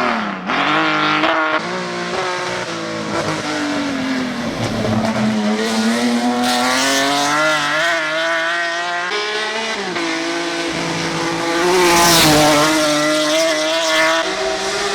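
BMW E46 Compact race car's engine revving hard under acceleration. Its pitch climbs steadily through the revs and drops sharply several times, most clearly near the start and about two-thirds of the way in, as the driver shifts gear or lifts.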